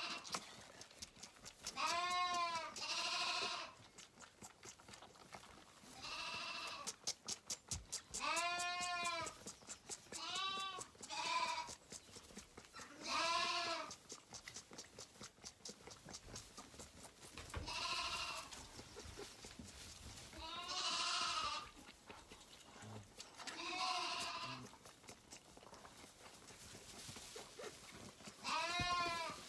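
Hungry Zwartbles lambs bleating over and over at bottle feeding: about a dozen separate calls, each rising and falling in pitch, some in quick pairs.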